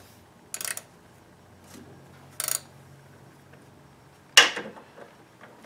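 Ratchet wrench clicking in two short bursts as it is swung back on a bolt in an engine bay, then one loud clank about four seconds in.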